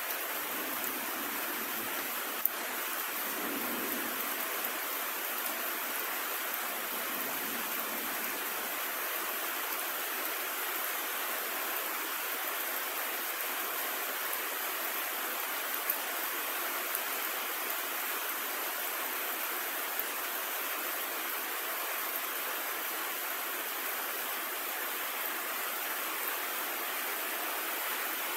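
Steady storm rain falling, an unbroken hiss with a few sharp ticks of drops. A faint low rumble comes a few seconds in.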